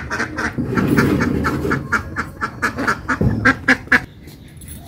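Domestic birds calling in quick, repeated short notes, with a few sharper, louder calls shortly before the sound drops away near the end.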